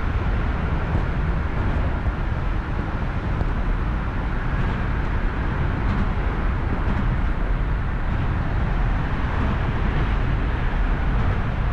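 Steady wind rumble on the microphone, heaviest in the low end, with no speech.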